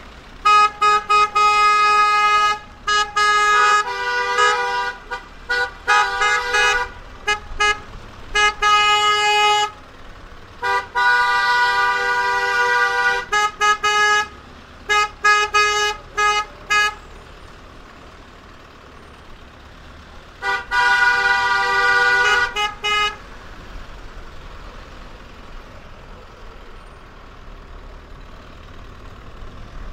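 Car horns honking over and over in short and long blasts, pausing at about 17 s and then sounding again for a couple of seconds.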